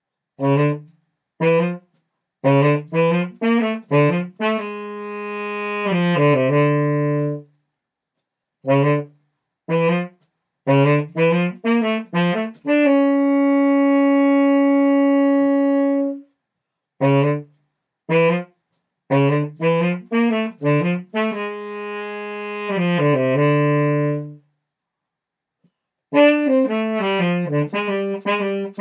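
Unaccompanied saxophone playing phrases of short, detached notes broken by brief silences, with a few held notes, the longest one sustained for about three seconds in the middle.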